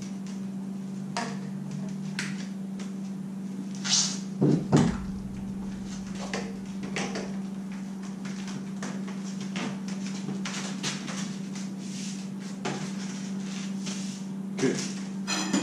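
PVC pipes and fittings being handled and pushed together, with scattered hollow plastic knocks and clacks, louder about four to five seconds in and again near the end. A steady low hum runs underneath.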